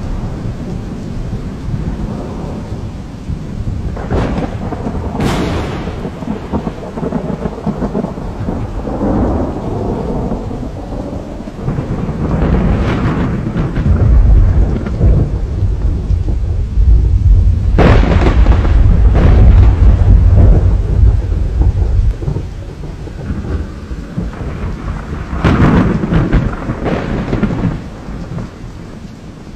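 Heavy rain pouring with a thunderstorm overhead: sharp cracks of thunder strike several times, and a long, heavy rumble of thunder rolls through the middle.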